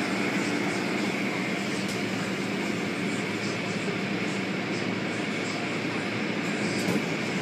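Automatic car wash machinery running: a steady, unchanging rush of noise with a low hum underneath.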